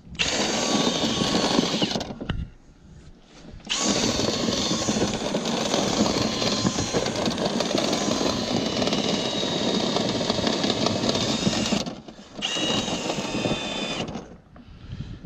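A power drill running in three spells, briefly about two seconds, then a long run of about eight seconds, then briefly again, with short stops between.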